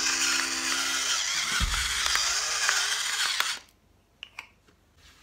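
Electric pepper mill grinding black peppercorns: a steady whirring grind that cuts off suddenly about three and a half seconds in, followed by a couple of faint clicks.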